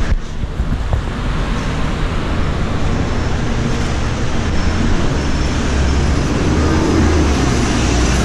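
City street traffic noise: a steady wash of passing vehicles, with a heavier low rumble from about five seconds in.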